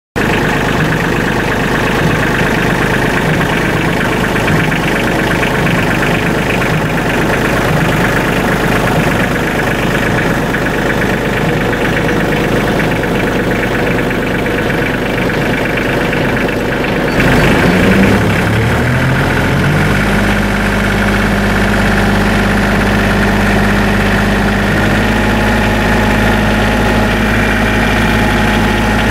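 Bobcat CT230 compact tractor's diesel engine running steadily. About seventeen seconds in, its pitch shifts as the engine speed changes, then it settles into a steady, even note about three seconds later.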